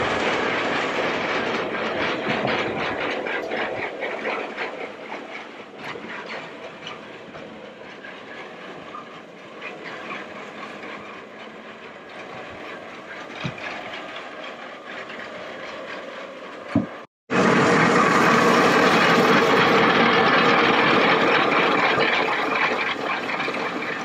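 Old mast crane with open gear wheels and a cable drum running, giving a steady metallic rattle and clatter. The sound breaks off briefly about two-thirds of the way in and comes back louder.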